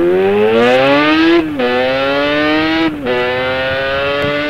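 Motorcycle engine accelerating hard through the gears. The pitch climbs steadily, drops sharply at two quick upshifts about one and a half and three seconds in, then climbs again.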